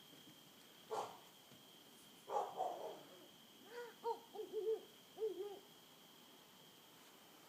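An owl calling from the woods: a quick run of short hoots, each rising and falling in pitch. Before it come a brief rustle and a sharp tap.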